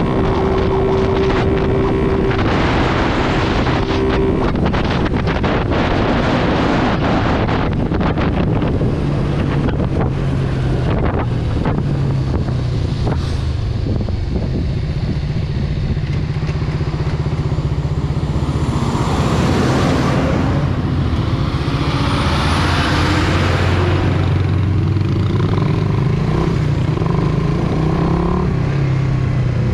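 Motorcycle engine running steadily at cruising speed, with wind rushing over the microphone. About two-thirds of the way in, a louder rushing sound swells and fades.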